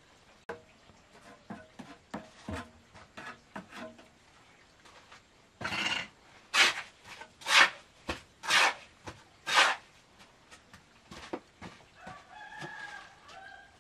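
Steel trowel scraping and scooping wet mortar from a heap on a concrete floor, five loud strokes about a second apart after some lighter knocks of cinder blocks being set. Near the end a rooster crows in the background.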